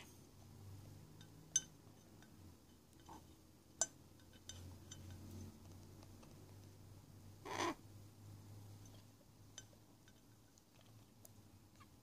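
Cockatiel bathing in a glass mason jar: two sharp clinks on the glass about 1.5 and 4 seconds in, a few faint ticks, and a short harsh burst of sound about 7.5 seconds in as the bird moves about.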